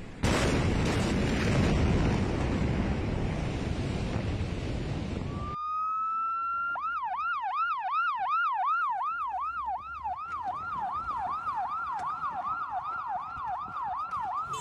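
A loud, steady rushing noise that cuts off abruptly about five and a half seconds in. An emergency vehicle siren then winds up and switches to a fast yelp, warbling up and down about two and a half times a second.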